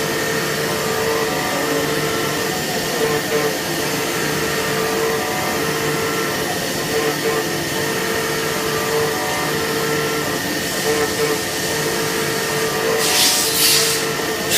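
CNC machine cutting a core box mould: a steady machining whine with a shrill tone that wavers slightly. Near the end a burst of hissing joins it.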